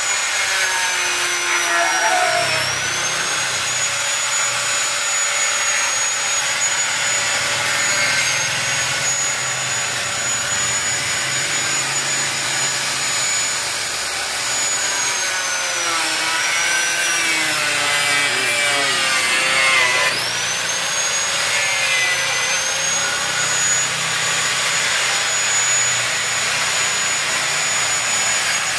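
Electric angle grinder with a cutting disc cutting a motorcycle's rear fender: a steady high whine over a rough grinding rasp. The whine sags in pitch whenever the disc bites, briefly a couple of seconds in and deepest during a long cut about two thirds of the way through, then snaps back up as the load comes off.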